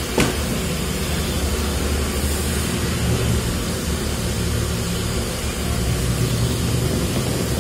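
Flat rice noodles being slurped and chewed over a steady low rumble and hiss, with one sharp click just after the start.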